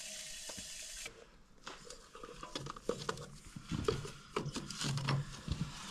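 Gloved hands screwing a filter onto a mini digger's diesel engine by hand: scattered rubbing and scraping with small clicks and a few light knocks. A steady hiss cuts off about a second in.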